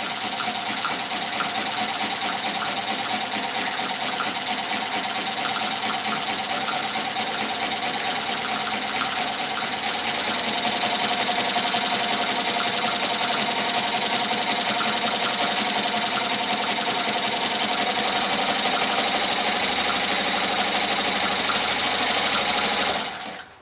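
Chaika-2 sewing machine running continuously at a steady speed, stitching through a strip of heavy material. It grows slightly louder about halfway through and stops near the end. This is a test sew after its cracked nylon half-gear was replaced with a metal one.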